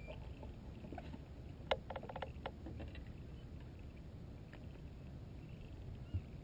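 Faint knocks and clicks on a bass boat's deck as the angler moves about and handles a largemouth bass, over a low steady rumble. A quick cluster of sharp clicks comes about two seconds in, with a few single ones later.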